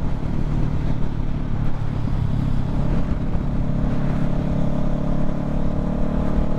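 Honda CBR500R's parallel-twin engine running at steady revs while the bike is ridden, with wind rush on the helmet-mounted microphone.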